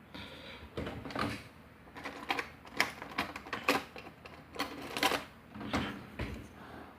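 Irregular small metallic clicks and taps from handling a euro cylinder lock and its parts while gutting it.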